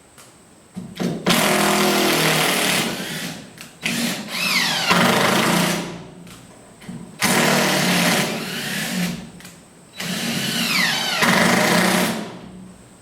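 Cordless drill/driver driving screws in four runs of about two seconds each, the motor speeding up and winding down with each pull of the trigger.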